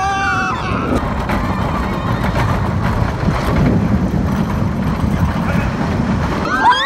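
Roller coaster ride: loud rushing wind buffets the rider's microphone, with the rumble of the running coaster underneath. A woman's scream trails off about half a second in, and another scream starts near the end.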